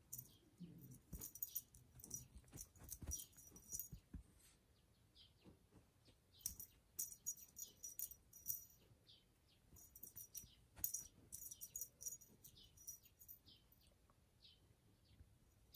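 A kitten playing with a fluffy teaser wand: faint jingling and clicking in irregular bursts, with a few soft thumps in the first few seconds.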